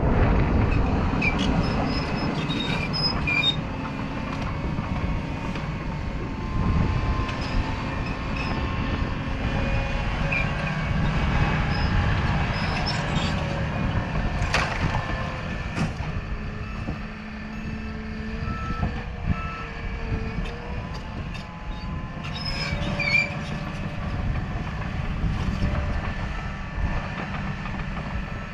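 Bulldozer working: its diesel engine runs steadily under load, with a few sharp knocks in the middle as it digs out and pushes old concrete.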